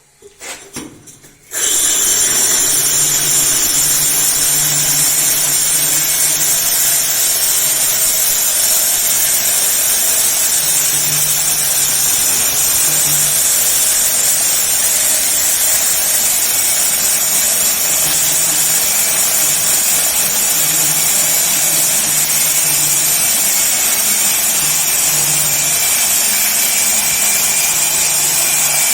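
A few brief knocks, then about a second and a half in a KEN 6110B diamond core drill with a 76 mm core bit starts and runs steadily, boring into reinforced concrete. It makes a high steady whine over an uneven low hum.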